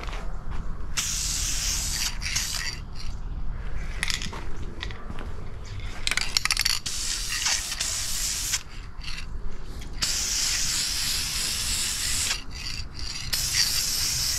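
Aerosol spray can of Duplicolor vinyl and fabric coating hissing in bursts as a coat is sprayed onto a vinyl console. The bursts come on and off several times with short pauses between, the longest lasting about two seconds near the end.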